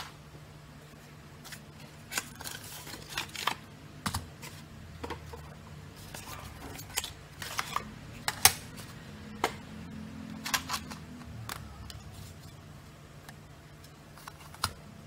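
Irregular clicks and light knocks of plastic case panels and metal-cased switching power supply modules being handled and set down on a desk mat, the sharpest knock about eight and a half seconds in, over a faint steady low hum.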